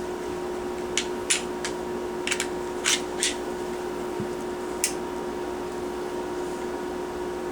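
Glock G27 pistol being field-stripped by hand: a string of sharp metal and polymer clicks and clacks in the first five seconds, over a steady low hum.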